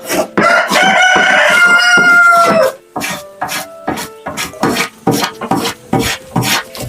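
A rooster crows once, one long call of about two seconds that dips at its end, over background music with a steady beat of sharp ticks.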